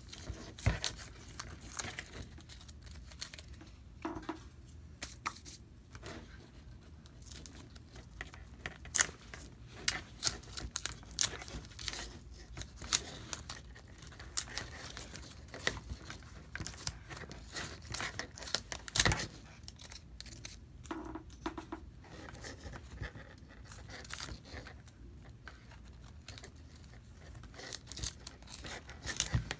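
Leather straps with small metal buckles being handled: irregular clicks, taps and rustling, with a few louder clicks.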